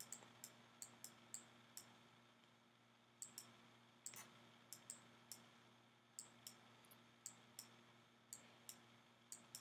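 Faint, irregular clicks of a stylus tip tapping on a tablet while handwriting, one to three a second with short pauses in between.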